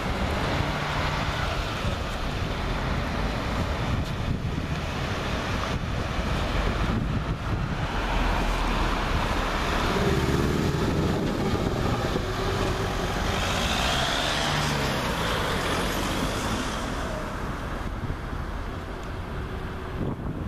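Road traffic going by: a motorhome passes first. Then a Porsche 718 Boxster S with its turbocharged flat-four drives past, loudest about halfway through, and moves away.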